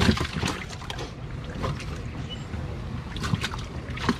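Water splashing in a plastic weigh-in tub as gloved hands grab bass in it, in several short, irregular splashes.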